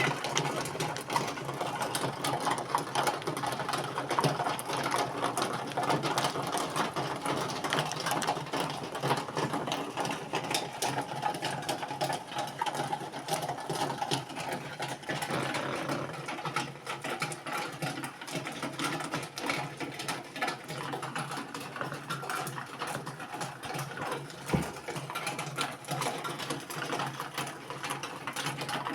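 A small machine running continuously with a fast, even clicking, and a single sharp knock about 24 seconds in.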